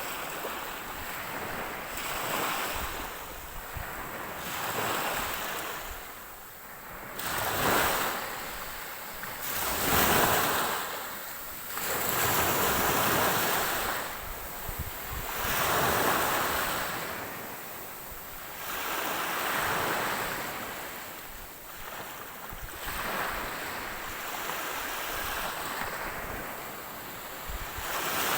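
Ocean waves breaking and washing ashore, the surf swelling and fading every two to three seconds.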